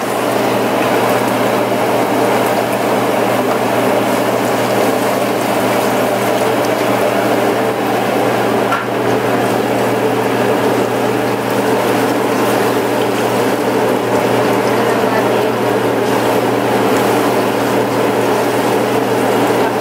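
Diced onion and minced garlic sizzling steadily in hot oil in a nonstick wok as they are stirred, over a steady low hum.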